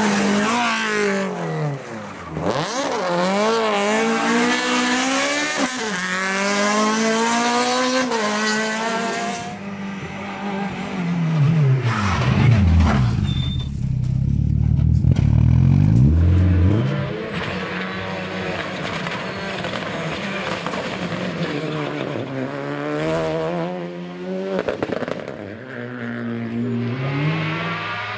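Rally car engines run hard as several cars pass one after another, the pitch climbing and dropping at each gear change. Around the middle, one car runs close by with a deep, loud engine note that dips and climbs again as it pulls away.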